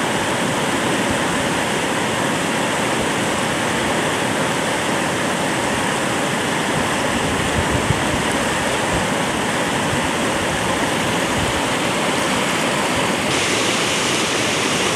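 Fast mountain river rushing over rocks in a steady, loud wash of white water; near the end the rush turns brighter and hissier.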